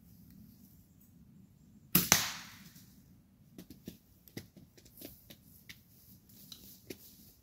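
A bow shot: the string is released with a loud, sharp double crack about two seconds in, fading quickly. Soft, irregular footsteps in dry leaf litter follow.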